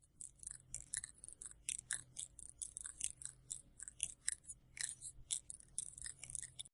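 An animal chewing: a run of quick, irregular crisp clicks and crunches, several a second, over a faint steady hum, cutting off abruptly at the end.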